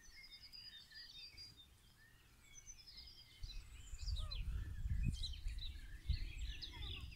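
Wild songbirds singing and chirping, many short calls and trills overlapping. From about three and a half seconds in, a low rumbling noise joins and stays.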